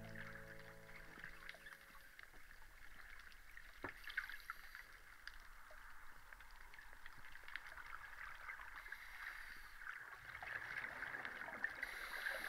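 Faint underwater ambience: a steady watery hiss crackling with many tiny clicks. The tail of a held music chord fades out in the first second, and a low rumble of water movement comes in near the end.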